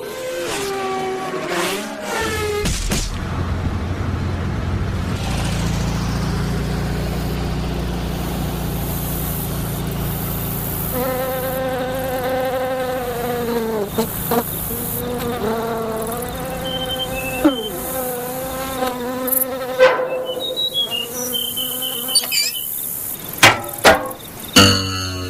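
Cartoon sound effects of flying insects buzzing as they race, the wing buzz rising and falling in pitch, with a low drone under it in the first half. Several sharp clicks come near the end.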